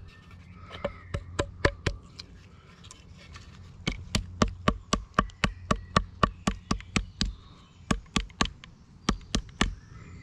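A wooden stick beating a fresh nettle stalk against a tree stump: a few blows about a second in, then a steady run of about four sharp strikes a second. The stalk is being crushed and flattened to break it open for its fibres, the first stage of making nettle cordage.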